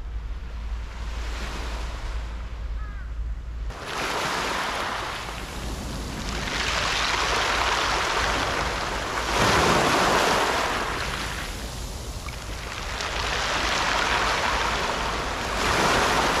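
Wind rumbling on the microphone for the first few seconds, then small waves washing up a pebble beach and drawing back, a hissing rush that swells and fades about every three seconds.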